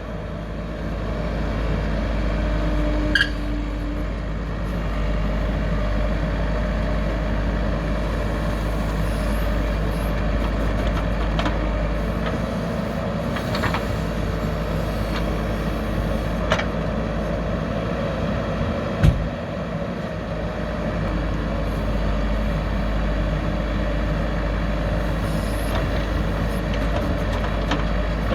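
Heavy diesel engines of a backhoe loader and a tipper truck running steadily during loading, with a few short knocks; the loudest is a sharp thump about two-thirds of the way through.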